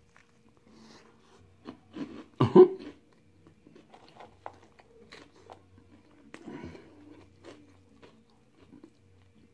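Close-up chewing and biting of a flaky Jamaican patty: soft wet mouth sounds and small crunchy clicks, with one louder mouth sound about two and a half seconds in.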